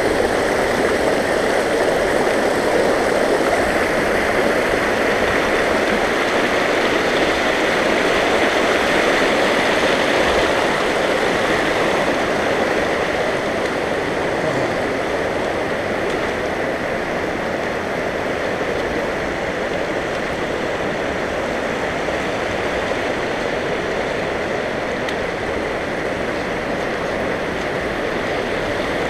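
Shallow rocky creek rushing and splashing over stones as a steady flow, easing slightly after about twelve seconds.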